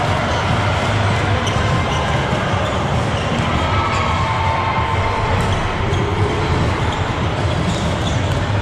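Echoing din of a busy indoor volleyball hall, with volleyballs being struck and bouncing on the hard courts throughout.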